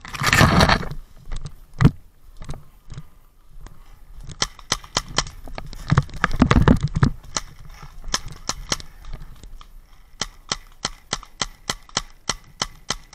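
Paintball marker shots: a loud burst of noise in the first second, then a string of sharp pops, bunched tightly around the middle and then evenly spaced at about three a second over the last five seconds.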